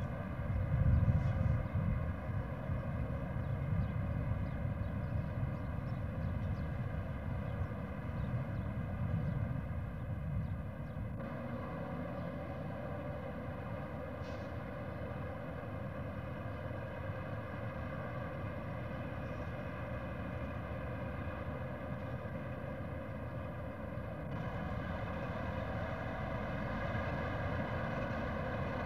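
Steady low rumble under a constant hum, with a slight shift in level about 11 and 24 seconds in.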